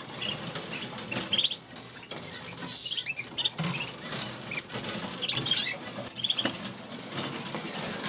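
Caged canaries giving short, scattered high chirps and calls, with wing flutters and small taps as a bird flits and hops between perches in its wire cage.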